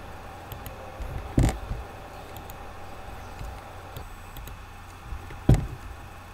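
Two sharp knocks, about four seconds apart, over a steady low hum and room noise, with a few faint ticks between them.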